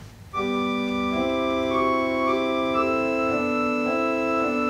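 Allen ADC-420 digital church organ playing a Baroque-style piece on a couple of swell stops. It comes in about a third of a second in with sustained, steady notes in several voices at once, the parts moving to new notes every second or so.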